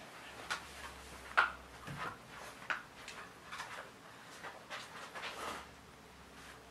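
Jack Russell terrier playing with a knotted rope tug toy on carpet: irregular soft scuffs, rustles and small knocks from paws and toy, the sharpest about one and a half seconds in.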